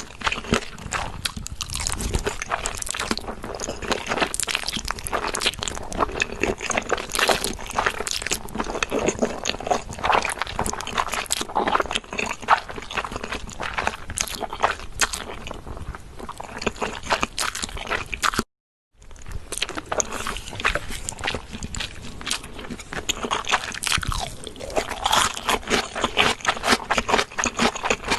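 Close-up crunchy chewing: a dense, continuous run of crisp crunches and bites of food. A brief silent break comes about two-thirds of the way through.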